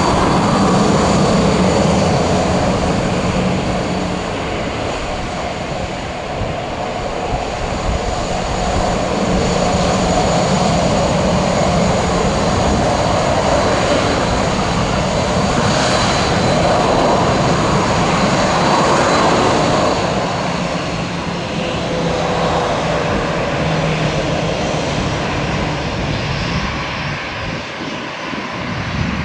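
Boeing 737-800 taxiing, its two CFM56-7B jet engines running at taxi power: a steady high whine over a low rumble, swelling and easing a little as the aircraft turns.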